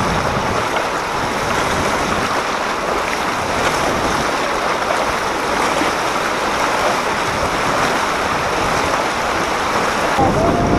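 Floodwater rushing and splashing in a steady, loud wash. Near the end a low rumble joins in.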